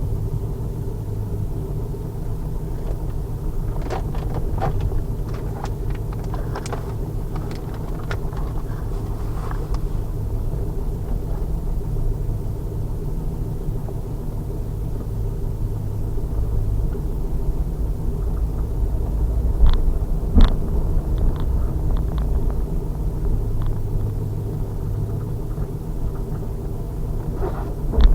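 A 2000 Pontiac Trans Am Firehawk's LS1 V8 runs steadily at low revs with a low rumble and no revving. Scattered clicks and rattles come through, and there is a sharp knock about twenty seconds in.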